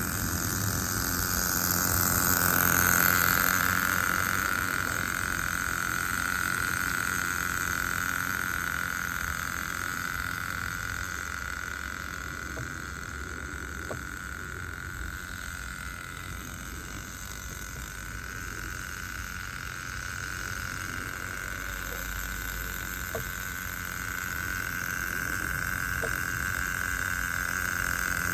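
Small nitro (glow-fuel two-stroke) engine of a 1/10 scale RC car running steadily with a high, even buzz that swells about three seconds in and again near the end.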